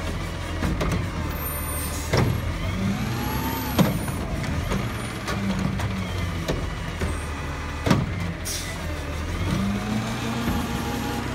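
Heil garbage truck running, with its engine humming and the hydraulics whining in rising and falling tones. Sharp metallic bangs come about 2, 4 and 8 seconds in as the lifting equipment works.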